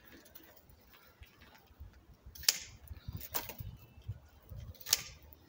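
Hand pruning shears snipping through thin peach branches: two sharp snips about two and a half seconds apart, with fainter clicks between them.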